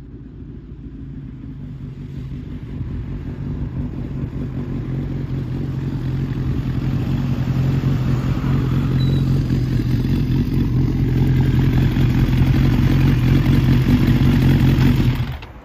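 Kawasaki motorcycle with an aftermarket exhaust ridden slowly toward and past the camera, its engine running at a steady low speed and growing louder as it nears, then cut off abruptly near the end.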